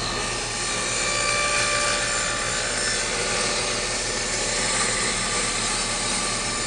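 A power tool's motor running steadily under load while trimming the top edges of a 3/4-inch marine plywood box level.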